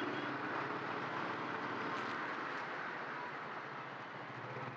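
Steady riding noise from a motorcycle on the move in city traffic: the engine running under road and traffic noise, even throughout with no distinct events.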